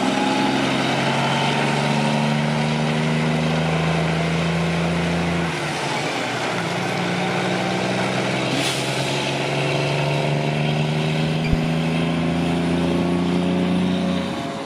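Heavy truck's diesel engine running at a steady note over road noise. The engine note breaks off for about a second around five seconds in, then returns. A short hiss about halfway through and a single sharp click later on.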